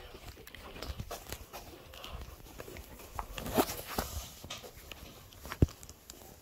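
Phone handling noise: fingers rubbing and tapping on the phone close to its microphone, with scattered knocks and a sharper knock about five and a half seconds in.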